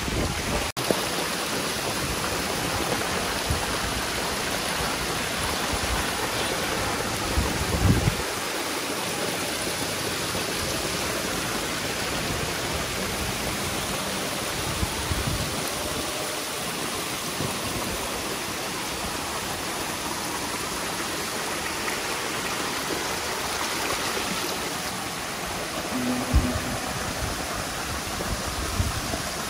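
Steady splashing and rushing of water in a fish tank crowded with hybrid magur catfish churning at the surface, with water pouring in from inlet pipes. A couple of brief low thuds come about eight seconds in and again near the end.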